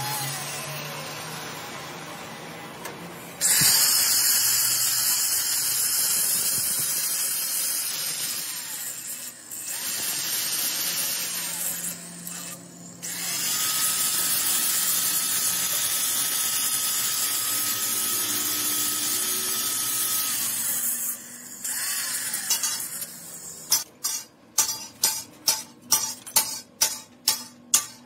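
Grinders working steel on a truck driveshaft yoke: a straight die grinder, then an electric angle grinder running in several long bursts with a steady whine over the grinding noise. Near the end comes a quick run of sharp metallic taps, about three to four a second.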